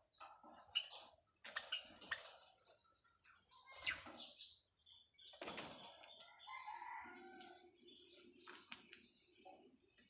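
Faint sounds of caged white Java sparrows moving about: short wing flutters and scuffling on the cage and straw, with a few brief chirps and a couple of sharp clicks near the end.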